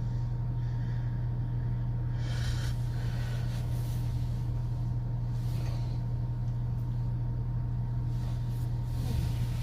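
A steady low hum throughout, with a sleeping woman's faint open-mouth breaths, soft airy rasps about every three seconds.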